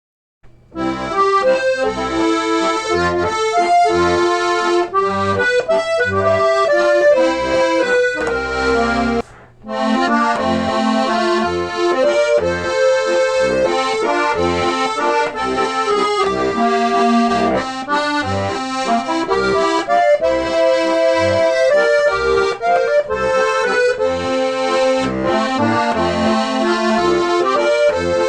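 Accordion playing a traditional tune, a melody over a pulsing bass accompaniment; it starts about half a second in and breaks off briefly about nine seconds in.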